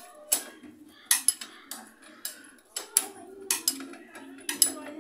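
Irregular metallic clinks and knocks of hand tools and steel parts being handled while a motorcycle rear wheel and its hub bearing are refitted, about a dozen sharp strikes at uneven intervals.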